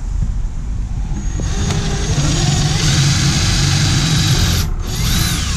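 Ryobi 18 V cordless drill boring down into plywood. The motor speeds up with a rising whine about a second and a half in and runs steadily. It stops briefly near the end, then starts again with a falling whine.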